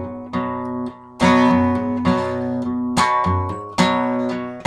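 Acoustic guitar strummed solo, a song's intro: chords struck roughly once a second, each left to ring.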